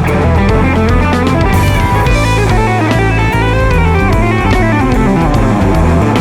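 Electric guitar playing a lead line with bent, gliding notes over bass guitar and a drum kit.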